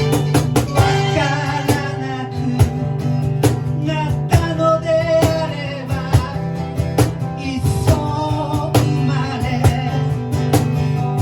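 Band music: guitar playing over a steady low drone, with frequent sharp percussive hits.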